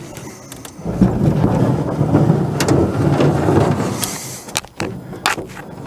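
Small aluminum boat hull sliding and scraping into a pickup truck bed as it is pushed in: a rough rumbling scrape starting about a second in and lasting a few seconds, followed by several sharp knocks near the end.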